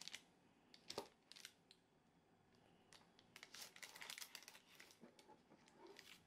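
Faint crinkling and scraping of a kitchen knife cutting down through a frosted carrot cake into the parchment paper beneath, with a couple of sharp ticks about a second in and a denser run of crackling between about three and five seconds in.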